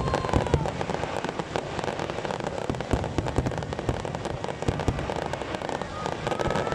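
Fireworks going off in quick succession: many sharp bangs over a steady crackle, with a short whistling glide near the start and another near the end.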